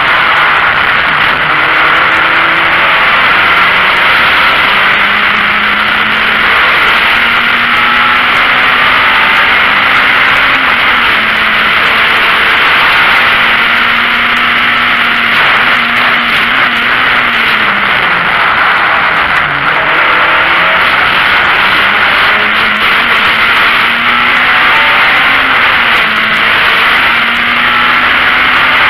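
Racing VW Golf Mk1's four-cylinder engine heard inside the cabin at racing speed. Its note climbs slowly on long pulls and drops at the shifts, with a deeper dip about two-thirds through before it climbs again. Loud rushing cabin noise runs over it throughout.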